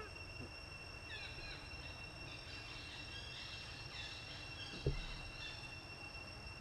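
Outdoor ambience with a steady, high-pitched insect drone. Short chirping calls come from about one to two and a half seconds in, and a single dull thump sounds near five seconds in.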